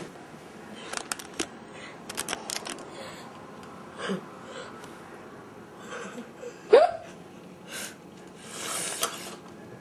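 A person with hiccups hiccuping: a faint hiccup about four seconds in and a sharp, loud one about seven seconds in. There are scattered small clicks, and a short hiss about nine seconds in.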